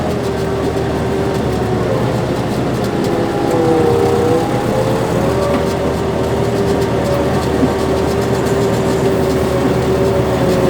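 Farm tractor engine running steadily under load while pulling a soybean planter, with a whine that drifts up and down in pitch over the engine noise.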